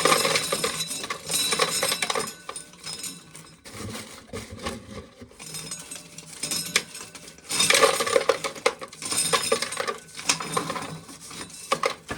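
Dried corn kernels being shelled off the cob, a dense run of small clicks and clinks as they fall into a container. The clicking comes in bursts, heaviest at the start and again from a little past the middle.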